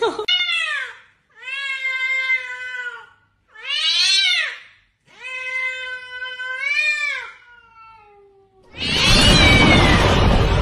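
A cat giving a series of long, drawn-out meows, each one to two seconds long. Near the end a loud rushing roar cuts in: a dubbed-in fire-breathing sound effect.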